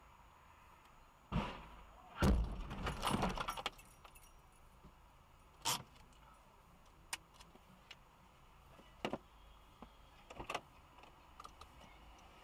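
Rear-end car collision heard from inside the struck car: a sharp knock about a second in, then a heavier crash with rattling and jangling lasting over a second. Scattered knocks and clicks follow as things settle.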